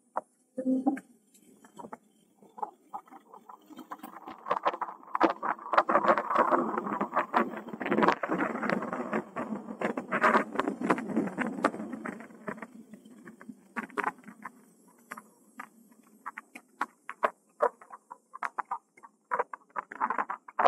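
Irregular crunching and clicking of an e-bike's tyres and frame rolling over a rough, cracked path. The crunching is thickest through the middle stretch and thins to scattered clicks near the end.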